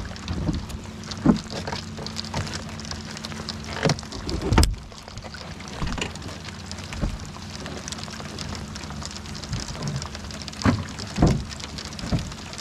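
Rain falling steadily, with a low steady hum underneath and scattered knocks and thuds. The loudest knocks come in pairs, one pair a little before the middle and one near the end.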